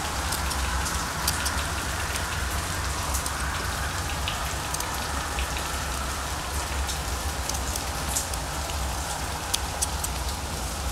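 Scissors snipping through felt: many small, crisp, irregular clicks over a steady hiss.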